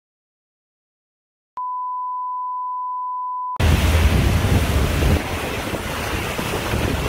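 A steady pure beep at one pitch for about two seconds after a moment of dead silence, then a heavy downpour of rain pouring onto pavement, loud and continuous, with wind rumbling on the microphone.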